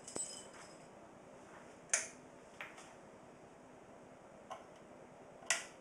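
Sharp clicks of the rocker switch on a variac's metal switch box as the 10 A variac is switched on, with no audible inrush. Two louder clicks about three and a half seconds apart, with fainter ones between.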